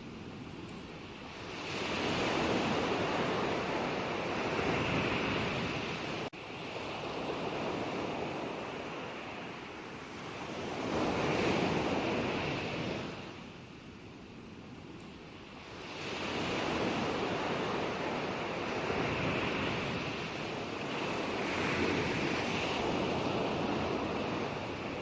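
Gentle ocean waves washing onto shore in slow surges, each swelling and fading over several seconds.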